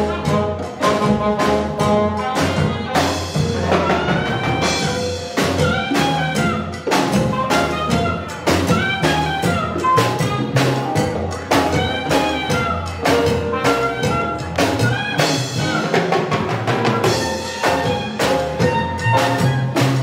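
Live Afro-Cuban jazz band playing, with a saxophone lead of bending, gliding notes over upright bass, drum kit and congas keeping a steady beat.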